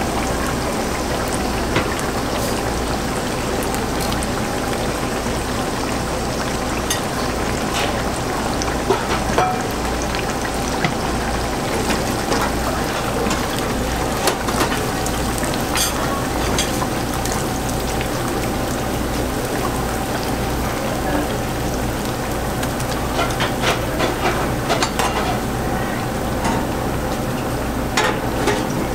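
Breaded cutlets deep-frying in hot oil: a steady, dense sizzle over a low hum, with scattered sharp pops and crackles that come more often near the end.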